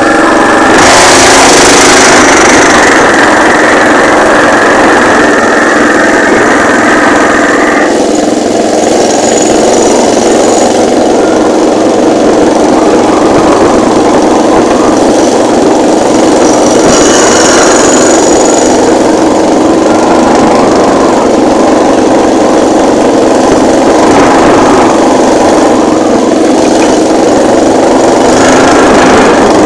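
The small carburetted petrol engine of a homemade Mini Beep amphibious jeep running steadily as the jeep is driven through the bush. Its tone loses some brightness about eight seconds in.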